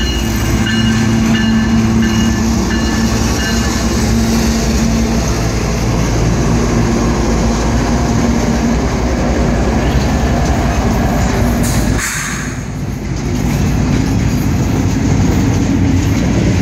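CSX freight train passing close by: the diesel locomotives' engines drone past, then about twelve seconds in the sound dips briefly and the clatter of the intermodal cars' wheels on the rails takes over.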